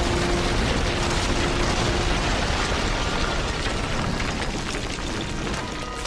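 Rockslide sound effect from an animated film: a steady rumbling crash of tumbling boulders that slowly fades toward the end.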